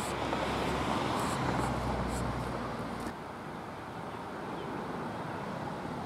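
Road traffic: a vehicle's steady low rumble and tyre noise for about three seconds, stopping suddenly, then a quieter steady outdoor hiss.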